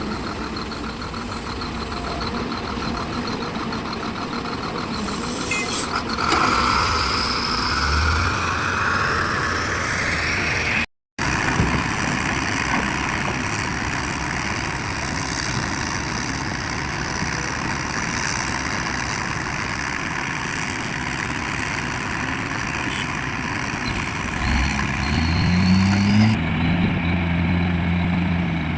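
Heavy diesel machinery running, with engine revs climbing in pitch about a third of the way in and again near the end, where they settle into a steady drone. There is a brief dropout to silence just before the middle.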